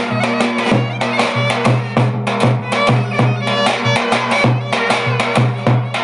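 Clarinet playing a Turkish folk dance tune over a davul bass drum, the drum beaten in a brisk rhythm of several strokes a second with deep booms.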